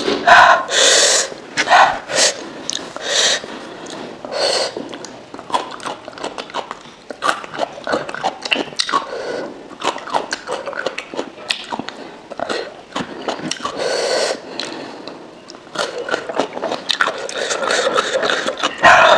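Close-miked mouth sounds of a person eating spicy jhol momo: chewing and lip smacking, broken by short sharp sniffs and breaths.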